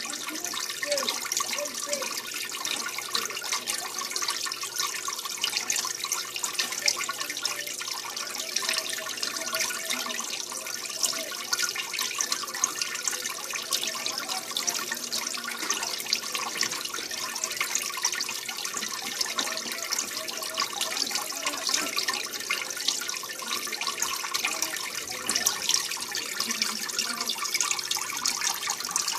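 Water trickling and splashing steadily into a small turtle tank, churning the surface.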